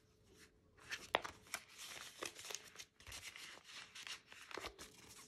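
Clear plastic zipper pouch and paper bank notes being handled, with irregular crinkling and rustling and a sharp click about a second in.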